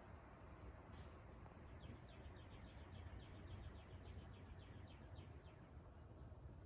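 Faint bird trill: a fast run of short, falling chirps, about eight a second, lasting a few seconds over a low steady background rumble.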